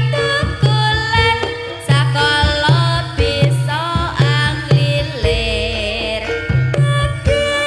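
Reog kendang folk music: kendang hand drums beating a steady rhythm under a high melody line that slides and bends in pitch.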